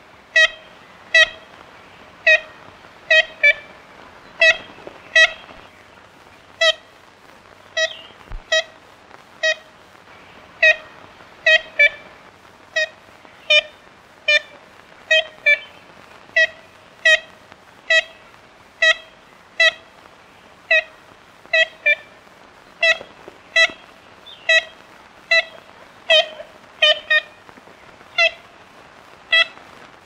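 Ivory-billed woodpecker calling: a long series of short, identical 'kent' notes, about one to one and a half a second, some given in quick pairs.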